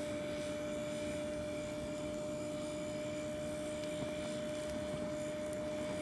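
Gas burner feeding a furnace at a low setting: a steady hiss of flowing gas with a thin, steady whistle.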